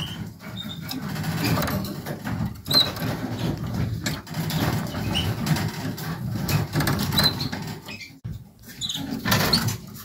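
Scratching and rustling in a canary cage, with clicks and a few very short, high canary chirps scattered through it.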